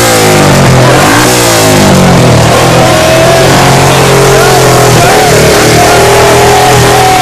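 Several engines revved hard at once, very loud: their pitch sweeps up and down for the first couple of seconds, then is held at a steady high pitch.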